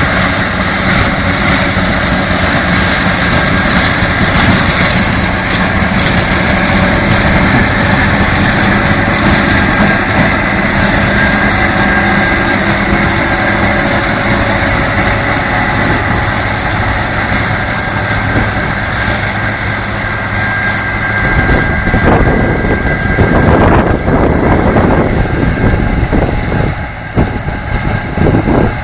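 Harvest machinery running steadily, with a deep engine hum and a steady high whine. About three quarters of the way through, the even hum gives way to louder, uneven rumbling.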